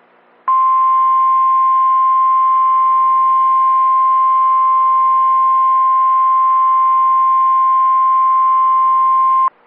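NOAA Weather Radio's 1050 Hz warning alarm tone, the signal that precedes a tornado warning: a single steady, loud tone held for about nine seconds. It starts about half a second in and cuts off sharply just before the end.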